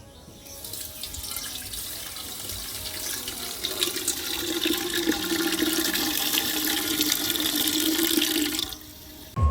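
Water running and splashing steadily, growing louder, then stopping abruptly near the end.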